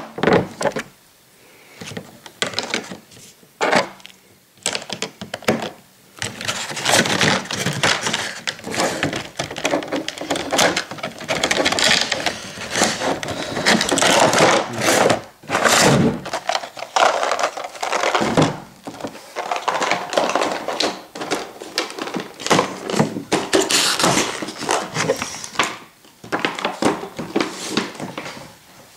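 Stiff clear plastic packing pieces being handled and pulled off a model locomotive: rapid crinkling, clicking and tapping of plastic. Sparser in the first few seconds, busiest from about six seconds in until near the end.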